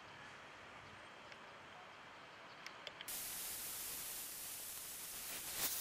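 Faint outdoor ambience with a few faint short chirps, cut off about three seconds in by an abrupt switch to a louder, steady hiss that swells briefly near the end.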